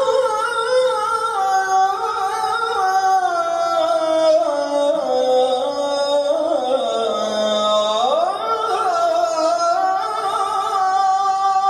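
Ezan, the Islamic call to prayer, chanted by a single voice in long, ornamented held notes on the phrase 'Allahu Ekber'. The melody drifts slowly downward, then swoops up sharply about eight seconds in and holds the higher note.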